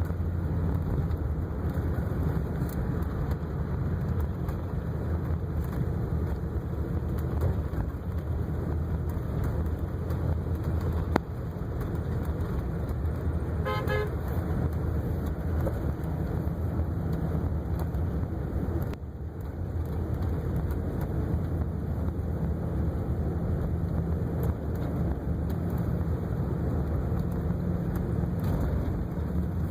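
1958 Cadillac's 365 V8 running with a steady low rumble, with a brief high pulsing tone about halfway through.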